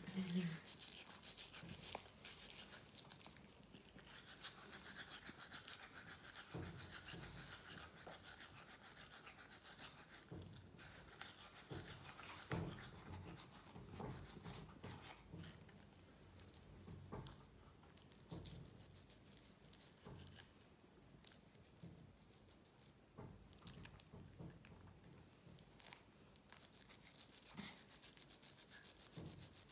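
A toothbrush scrubbing a dachshund's teeth: faint, rapid back-and-forth bristle strokes. They are louder in the first few seconds and again near the end.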